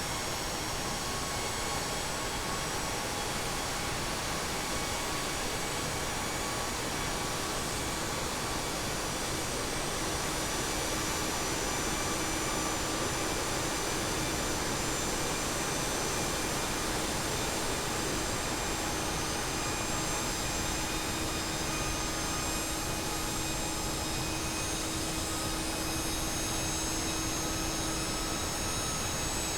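GE Passport business-jet turbofan engine running under power: a steady roar with whining tones that creep slowly upward in pitch as the engine accelerates. A lower hum joins about ten seconds in.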